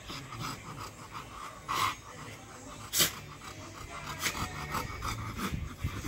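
A big dog panting fast and evenly, about five breaths a second, while play-wrestling with a husky, with a louder short noise about two seconds in and a sharp click about a second later.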